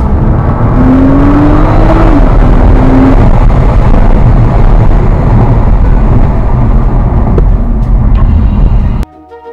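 Nissan GT-R's twin-turbo V6 under hard acceleration, heard loud from inside the cabin. The engine note climbs, drops at an upshift about two seconds in, and climbs again, then gives way to a steady loud rush of engine, wind and road noise at speed. Near the end it cuts off sharply to orchestral music.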